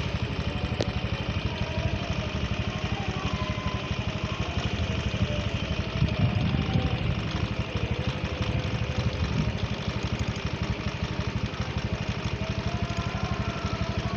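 An engine idling steadily, briefly a little louder about six seconds in.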